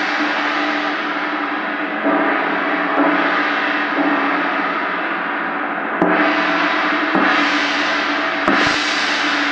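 A 38-inch (95 cm) chau gong (tam tam) struck with a soft padded mallet, ringing continuously as about six further strokes, roughly one every second or two, keep the wash going and swelling.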